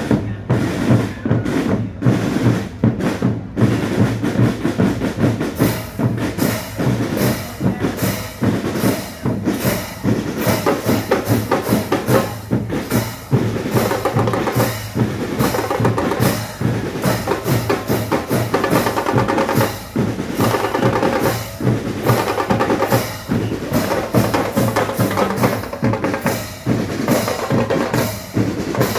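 A band playing: drums, bass drum and snare, beat a steady, busy rhythm, with a pitched melody coming in over them partway through.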